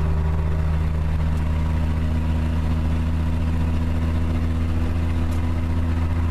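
Car engine and road noise while driving, a steady low drone that holds even throughout.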